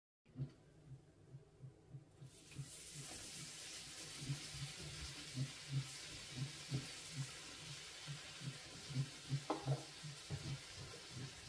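Chopped garlic frying in a pan, sizzling steadily after growing louder about two seconds in, while a silicone spatula stirs it with soft repeated knocks about twice a second against the pan.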